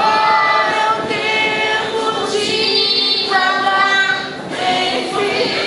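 Singing: voices carrying a song's melody in long held notes, one after another.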